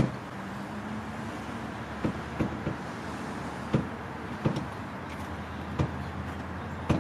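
A storm door being fitted: scattered sharp knocks and clunks, about seven at uneven intervals, over a steady background rumble.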